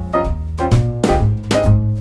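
Instrumental background music with a steady beat, a jazzy tune with piano, bass and drums.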